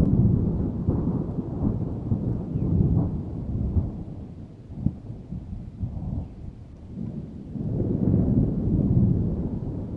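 Rolling thunder: a deep, low rumble that swells, dies down around the middle and builds into another roll near the end.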